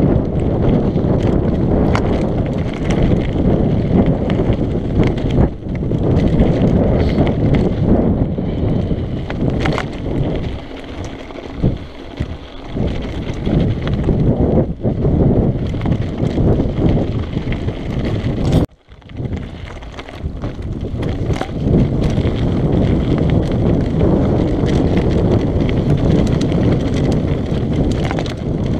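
Mountain bike descending a rough, rocky dirt trail at speed: wind buffeting the camera microphone over the crunch of tyres on gravel and the clatter and rattle of the bike over bumps. The sound eases for a few seconds about a third of the way in and cuts out very briefly about two-thirds through.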